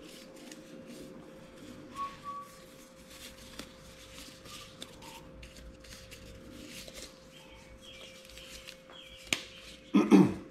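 Disposable gloves being pulled onto the hands: faint rustling and stretching with a few short squeaks, and a louder rubbery snap or thump near the end. A faint steady hum runs underneath.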